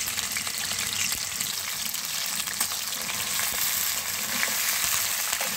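Raw chicken pieces frying in hot oil in a non-stick pan: a steady sizzle with many small crackles, as a spatula turns the pieces.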